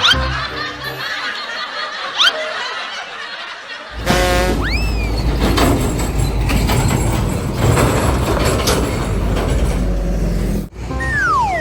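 Background music with edited-in sound effects: a lighter passage gives way about four seconds in to a loud, bass-heavy track, with a rising whistle-like glide as it starts and a falling glide near the end.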